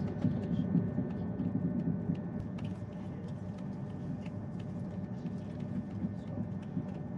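Thalys high-speed train running, heard from inside the passenger car: a steady low rumble with a faint hum and scattered small clicks and creaks.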